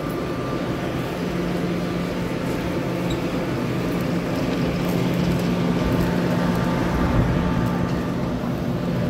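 Steady hum of a Kaohsiung MRT steel-wheel metro train standing at the platform with its doors open. A low drone runs under the general station noise.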